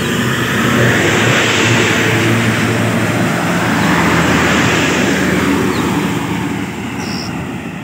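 A motor vehicle driving past close by on the road, its engine running under a loud rush of tyre and road noise that swells twice.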